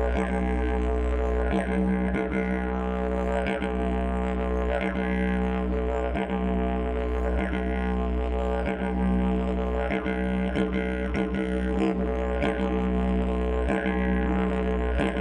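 Didgeridoo playing a continuous low drone. Its upper tone shifts in rhythmic pulses every second or two, and the drone dips briefly a few times.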